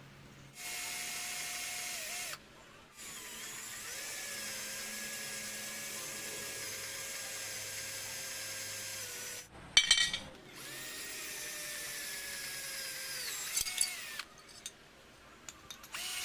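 Flipkart SmartBuy 20V cordless drill running in three spells with a steady high motor whine, boring into a block of wood. A loud short clatter comes between the second and third runs, and light clicks and clinks near the end.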